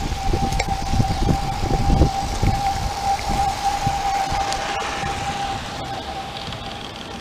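Model garden-railway train running on the track close by: a steady high-pitched whine over a low rumble and clatter of wheels. The rumble dies away after about three seconds, and the whine fades near the end.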